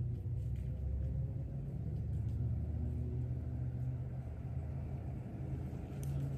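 Steady low engine rumble, like a motor vehicle running, with faint pitched hum lines over it.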